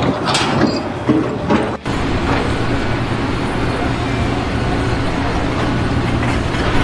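A heavy engine running steadily with a low drone, after a short break about two seconds in.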